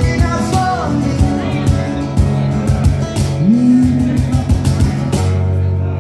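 Live acoustic rock band playing, guitars strummed in a steady rhythm, closing on one held chord about five seconds in.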